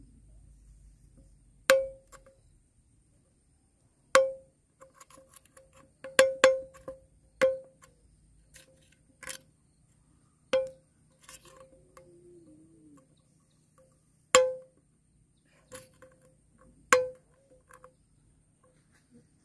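About eight sharp knocks on a hard object, irregularly spaced, each ringing briefly at the same pitch, with a few fainter taps between them.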